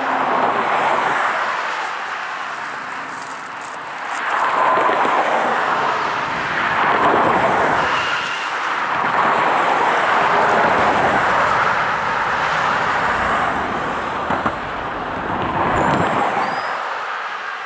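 ALCo diesel locomotive running as it approaches slowly at the head of a passenger train, its noise swelling and fading in waves. A brief high squeal comes about eight seconds in.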